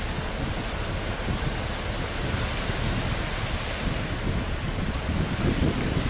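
Wind buffeting the microphone in uneven gusts over a steady rushing noise.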